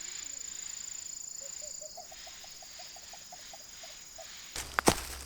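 Bell crickets and other autumn insects singing, a steady high trill. Near the end, a couple of sharp loud knocks break in.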